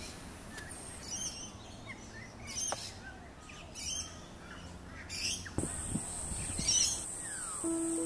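Noisy miner giving short, high chirping calls, five in all, a little over a second apart. A steady high-pitched whine comes in about halfway through, and music starts near the end.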